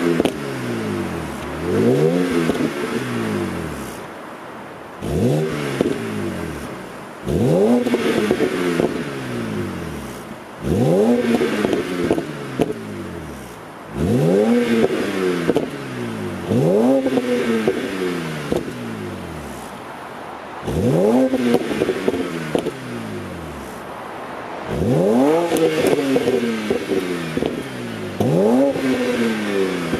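2007 BMW 330i E92's straight-six, warm, on its stock exhaust, blipped about a dozen times in a row: each rev climbs sharply and then falls back, with exhaust crackles and pops as the revs drop.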